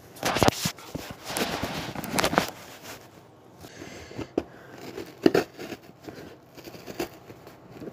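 Scissors blade stabbing into and scraping along packing tape on a cardboard mailing box. A loud stretch of rustling and handling of the box in the first two seconds or so, then scattered short scratches and clicks.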